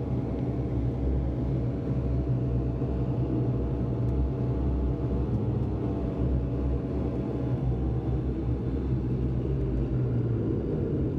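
Steady low drone of a turboprop airliner's running machinery, heard from inside the cabin while the aircraft is on the ground after landing, with a faint hum that shifts a little in pitch midway through.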